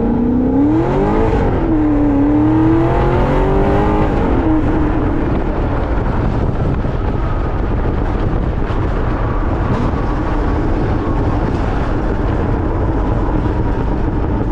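Corvette Z06's naturally aspirated LS7 V8 revving, its pitch rising and falling twice in the first few seconds, then settling into a steady, loud, even run.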